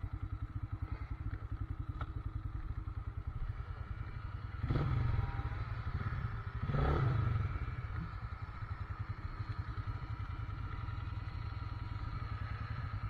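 ATV engine running at low speed with a steady pulsing beat, rising in two short louder surges about five and seven seconds in.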